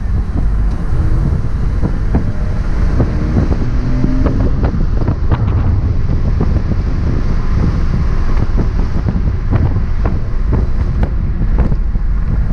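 Wind buffeting the microphone in an open-top 2001 Porsche Boxster on the move, over the low rumble of its flat-six engine and road noise. The engine note rises a little in the first few seconds as the car accelerates.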